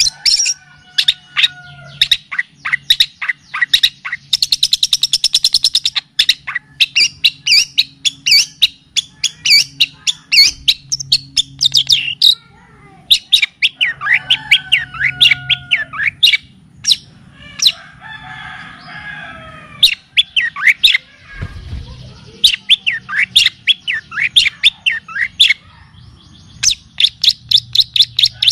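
Recorded songbird song played as a training track for long-tailed shrikes: fast runs of sharp chirps and whistles, with a rapid buzzy trill about four seconds in and a softer warbling passage past the middle. A faint steady low hum runs underneath.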